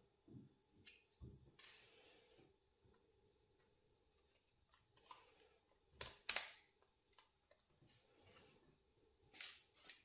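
Faint clicks and short rustles of fingers handling small parts inside an opened laptop's chassis. A few sharper clicks stand out about six seconds in and again near the end.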